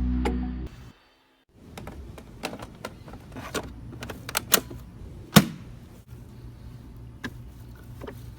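Irregular sharp clicks and knocks of hard parts being handled, the loudest about five seconds in, over a low steady hum. Music ends about a second in.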